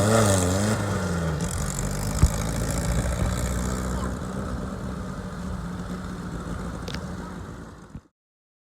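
An engine idling with a steady low hum. Its pitch wavers during the first second or so, then settles. There is a sharp click about two seconds in, and the sound cuts off suddenly near the end.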